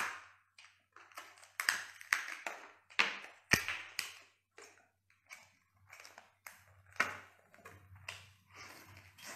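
Cooked lobster tail's shell cracking and crackling as it is pried apart by hand: a run of short, sharp cracks, then biting and chewing into the meat near the end.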